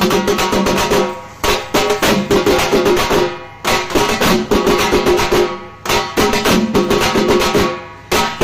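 Fast, loud drumming on large stick-beaten drums with cymbals, in rapid rolls. The rolls stop for a short beat about every two seconds, four times.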